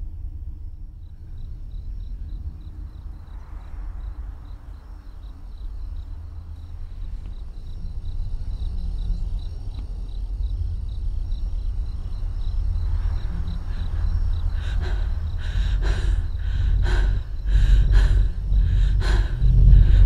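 Suspense trailer sound design: a low rumbling drone that slowly swells, with a faint high pulsing tone over it. In the last few seconds come heavy booming hits, about one a second.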